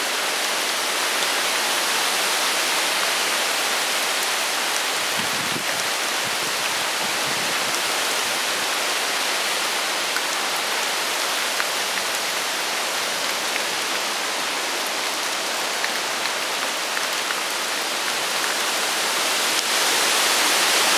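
Hurricane wind and heavy rain: a steady rushing hiss of rain and wind through thrashing trees, getting a little louder near the end.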